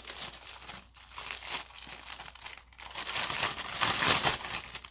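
Slime being squashed and pushed into a plastic container, a run of small crackling noises that grows louder about three seconds in.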